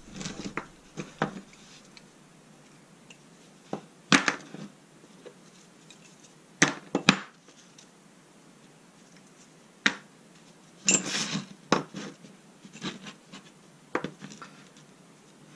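Lengths of 12 mm square metal bar being picked up, set down and knocked together on a workbench mat: irregular sharp clacks and taps, with a close pair about seven seconds in and a quick cluster around eleven seconds.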